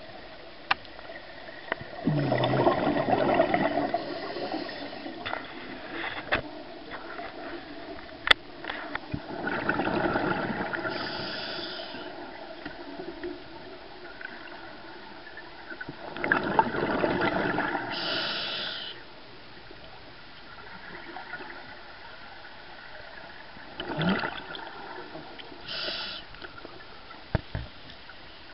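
Scuba diver breathing through a regulator, heard underwater: a rush of exhaled bubbles about every seven seconds, four times, each followed by a short high hiss from the regulator.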